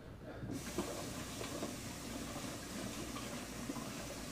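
Kitchen tap turned on about half a second in, water running steadily and splashing over hands being rinsed.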